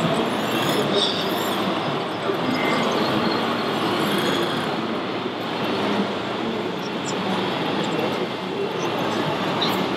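Steady rumbling din, with no pauses or sharp events: a large radio-controlled Hitachi ZW550 wheel loader model running over dirt, mixed with the noise of a big hall.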